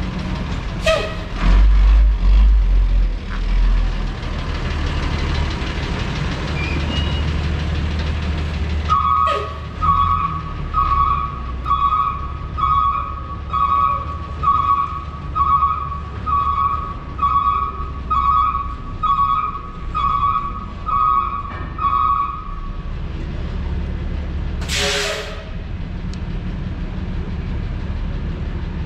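Street traffic, with a heavy vehicle's low engine rumble in the first few seconds, then an electronic warning beeper sounding about once a second for some thirteen seconds, and a short sharp hiss near the end.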